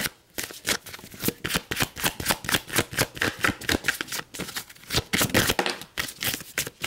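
A deck of oracle cards being shuffled by hand: a rapid run of card-edge clicks and slaps.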